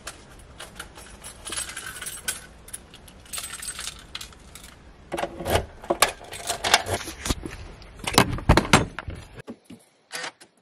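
A bunch of keys jangling, then a run of sharp metallic clicks as a key turns in a front door lock to lock it. The loudest clicks come about eight seconds in.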